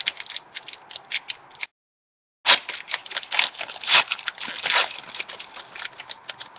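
Foil wrapper of a 2011 Panini Certified football card pack being torn open and crinkled as the cards are pulled out, a rapid run of crackles and rips. The sound cuts out completely for under a second about two seconds in.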